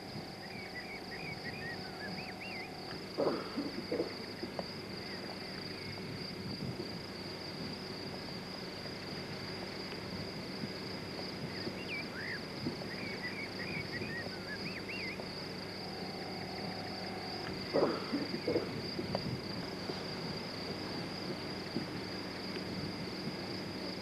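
Quiet outdoor ambience: a songbird's short twittering phrases come and go over a steady high-pitched whine, with two brief louder noises, one about three seconds in and one near eighteen seconds.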